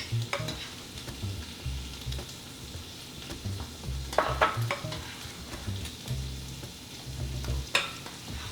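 Chicken frying in sesame oil in a pan, a steady sizzle, with a few sharp clinks of utensils against dishes about four seconds in and again near the end.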